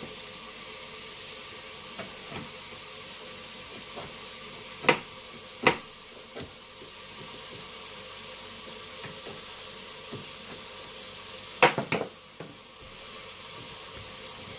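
Steady hiss of water running in a sink while fridge parts are washed, with sharp knocks as they are handled: one about five seconds in, another near six, and a quick cluster of three near twelve.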